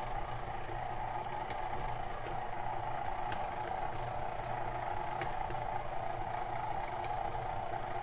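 KitchenAid stand mixer running steadily, its motor humming evenly as the flat beater churns thick cookie dough.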